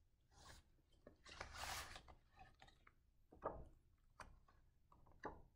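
Faint handling of a hardcover picture book as it is opened: a soft swish of the cover and pages about a second in, then a few light taps and rustles.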